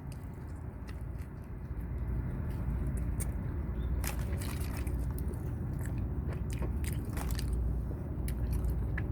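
A person chewing a bite of an Egg McMuffin close to the microphone: soft mouth clicks and smacks scattered through, over a low steady hum.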